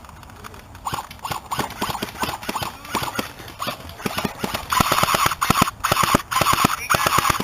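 Airsoft electric gun firing at close range: scattered short bursts over the first few seconds, then several longer full-auto bursts in the second half, each with a whine from the gun's motor and gearbox. It is suppressive fire to keep an opponent pinned.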